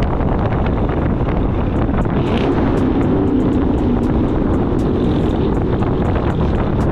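Loud exhaust of a HEMI V8 Dodge Charger cruising in traffic, a steady low rumble with road and wind noise; a deeper drone swells in about halfway through, then fades.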